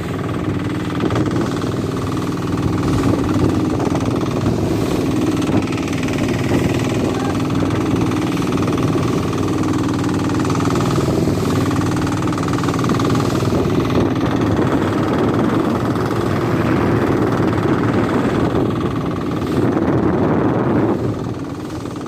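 Fishing boat's engine running steadily under way, a constant droning hum.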